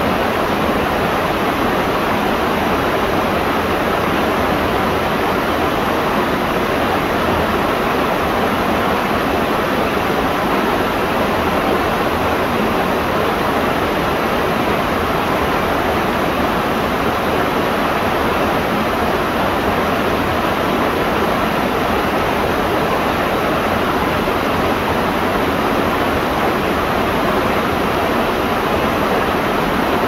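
Mountain waterfall cascading over rock ledges into a plunge pool: a steady, loud rush of falling water.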